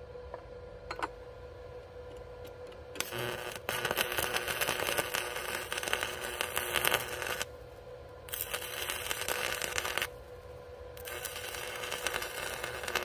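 Stick (arc) welding with a Power Fist 110 inverter arc welder: the electrode's arc crackles and sizzles in three runs, a first of about four seconds starting about three seconds in, then two shorter ones of about two seconds each, with brief breaks between.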